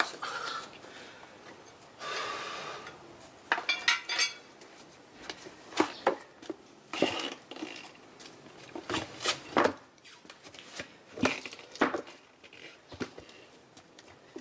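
Metal hand tools clinking, knocking and scraping in an irregular series of sharp strikes, with a short scrape about two seconds in and a brief metallic ring about four seconds in.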